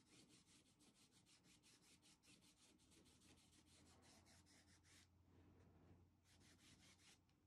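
Faint scratchy rubbing of a flat paintbrush stroked quickly back and forth across a fabric apron, laying on craft paint, about five strokes a second. The brushing pauses about five seconds in, then resumes briefly near the end.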